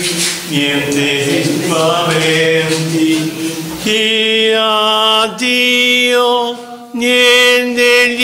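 Slow devotional chant sung on long held notes with short breaks between them. About four seconds in, the singing changes to a clearer, steadier melody.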